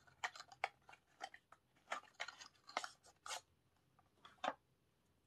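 Cardboard product box and its packaging handled and opened: a string of short crinkles and crackles, thickest in the first three and a half seconds, with one last crackle about four and a half seconds in.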